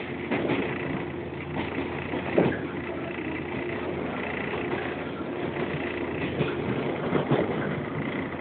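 Running sound inside a JR 115 series electric multiple unit's motor car (resistance-controlled, CS15 controller) moving between stations: a steady hum of the traction motors and gears under wheel-on-rail noise, with a few knocks from the wheels on the track.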